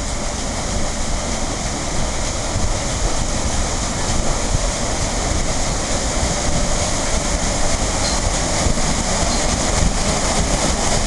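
Steady rushing and churning of a paddle steamer's side paddlewheel working the water as the boat moves off, with a low rumble underneath; it grows a little louder after a couple of seconds.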